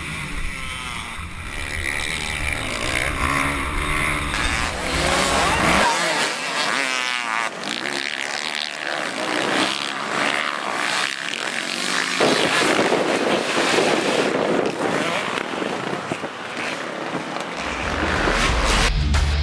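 Motocross dirt bike engines revving up and down. For about the first six seconds it is the onboard rider's own bike, with wind rumbling on the helmet camera's microphone. After that a pack of bikes races past and over jumps.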